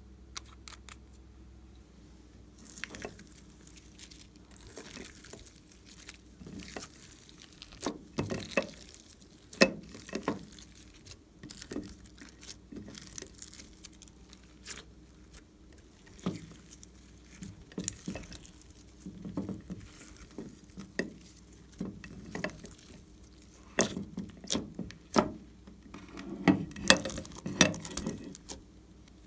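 Slime being mixed and squished by hand, with irregular sticky clicks and pops that come in denser clusters now and then.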